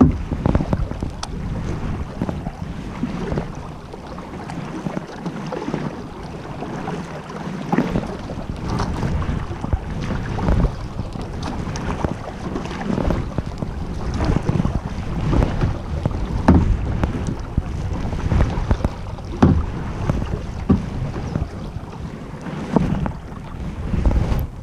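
Kayak paddle blades dipping and splashing into the water, about one stroke a second, over wind rumbling on the microphone.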